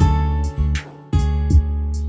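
Music with a strummed guitar.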